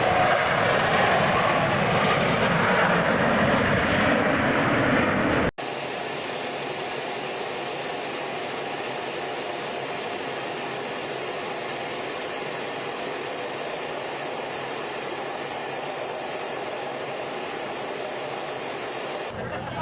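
Airplane engine noise, loud for the first five seconds or so. An abrupt cut then switches to a quieter, steady engine drone with a layer of constant tones.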